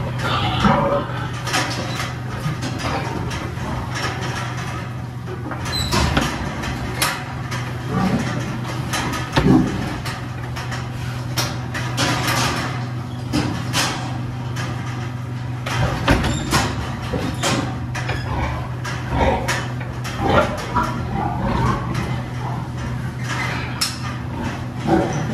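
Sows moving out of steel gestation crates: scattered knocks and metal clatter from the crate bars and gates, with grunting pigs, over a steady low hum.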